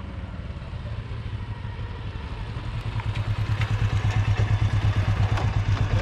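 Motorcycle engine running at low revs with an even, pulsing beat, growing louder from about two seconds in.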